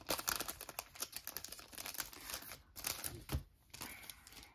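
Thin clear plastic card sleeve crinkling as a photocard is worked out of it: a dense run of small crackles that thins out after about two and a half seconds, with a soft knock a little past three seconds in.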